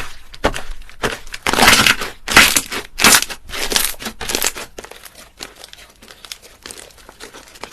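Slime being squeezed and pressed by hand, giving irregular crackling, crinkling pops that are loud at first and grow fainter after about five seconds.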